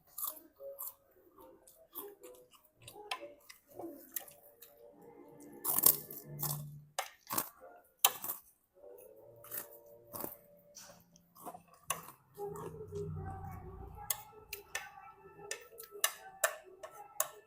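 Irregular clicks and knocks of kitchen utensils and cookware being handled, with a faint low hum for a couple of seconds near the middle.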